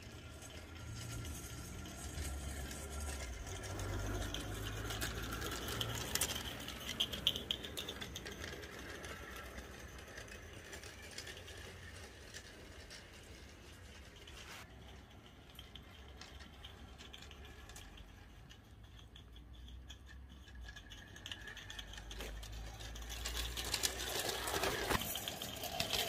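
Bassett-Lowke Enterprise live-steam model locomotive running round a small track, a light mechanical rattle with quick clicks of wheels on rail. It grows louder as it passes close about five seconds in, fades as it moves away, and comes close again near the end.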